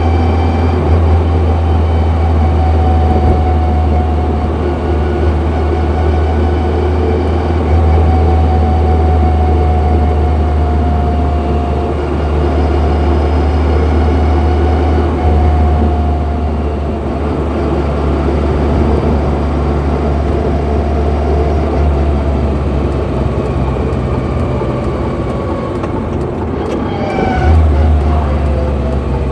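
Car heard from inside the cabin while driving: a steady low engine drone with a distinct whine from the gearbox, a high tone that slides up and down in pitch with road speed. Near the end the whine falls in pitch as the car slows. This whine is the sign of a noisy, worn gearbox.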